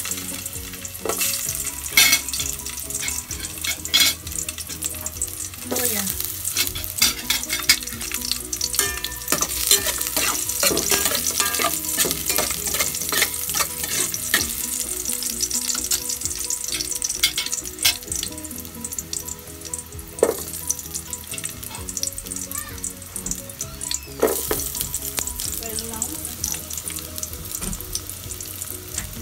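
Ginger sizzling as it fries in hot oil in an aluminium pot, with a spoon scraping and clicking against the pot as it is stirred.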